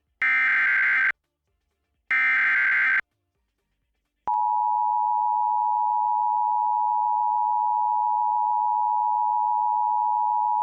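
Emergency Alert System broadcast: two bursts of SAME header data, each about a second of buzzing digital tones, the last two of the header's three repeats. About four seconds in, the steady two-tone EAS attention signal (853 and 960 Hz together) starts and holds.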